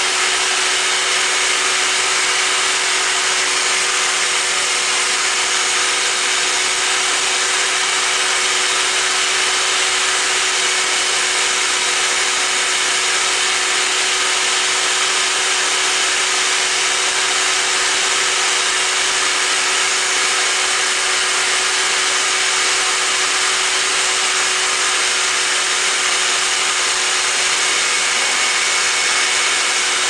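Vacuum cleaner running steadily, its hose nozzle drawn over a cockatoo's feathers: a loud, even rushing hiss with a steady hum under it.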